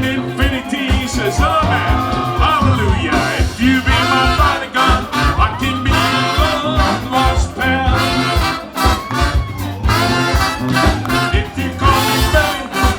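Upbeat band music with a brass section playing over a steady beat of drums and bass.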